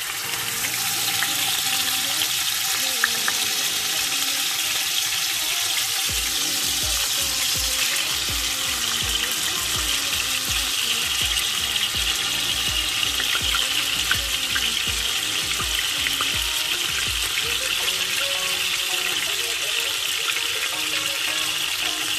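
Salmon steaks frying in hot oil in a pan, a steady loud sizzle that builds over the first second.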